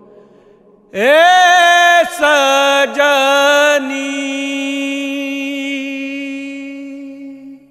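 A male voice sings one long held note in a Bhojpuri folk song. It slides up into the note about a second in, drops to a lower held note near the middle and fades away at the end. The voice is heard alone.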